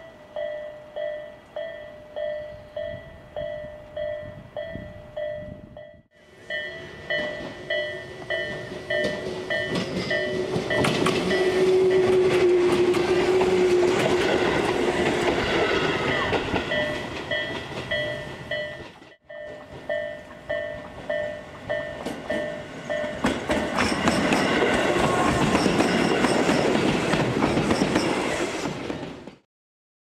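Japanese level-crossing warning bell sounding about twice a second, then a train passing over the crossing with its wheels clacking on the rails. After a break the crossing bell rings again and another train passes.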